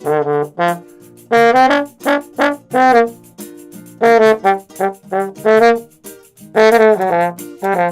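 Trombone playing a melody of short, separate notes, with a low steady accompaniment beneath.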